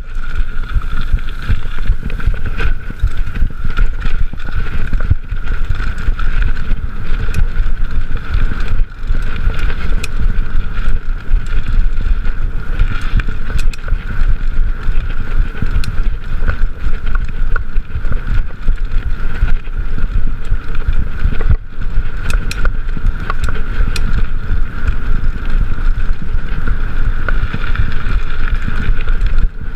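Mountain bike ridden along a dirt single-track trail, heard from a chest-mounted GoPro: heavy wind rumble on the microphone, with tyre noise and frequent clicks and rattles from bumps. A steady high hum runs underneath.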